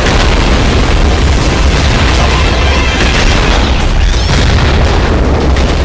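Loud, continuous, heavily distorted rumble with very heavy bass, unbroken throughout.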